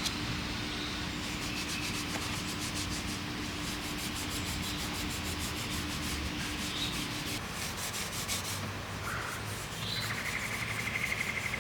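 Red Scotch-Brite pad scrubbing a part with glass cleaner in fast back-and-forth strokes, which stop about three-quarters of the way through. A high trilling chirp follows near the end.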